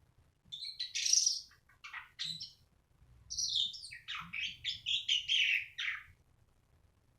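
Pied starling (jalak suren) singing: two bursts of varied chattering, whistled notes, the second longer than the first, stopping about six seconds in.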